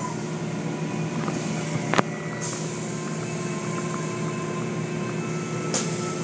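Automatic car wash heard from inside the car: water spraying across the windshield over a steady hum from the wash machinery, with a sharp knock about two seconds in.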